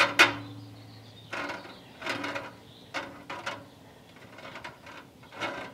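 Glass canning jars clinking and knocking against a Presto aluminum pressure canner as they are lowered in one at a time: a run of sharp, ringing clinks with short gaps between them.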